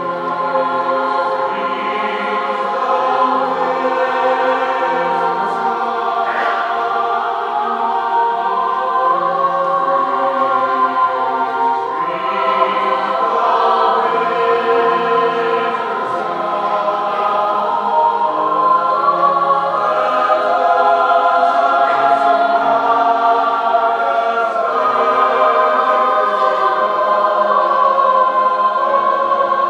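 Choir singing in several voice parts, holding long chords that swell in just as it begins.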